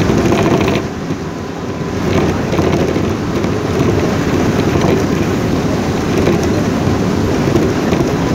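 Steady low rumble inside a moving vehicle driving through rain, with rain on the window glass.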